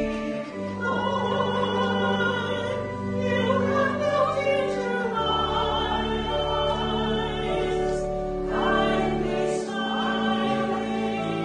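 Singing voices with instrumental accompaniment: sustained chords over a deep bass note that changes twice.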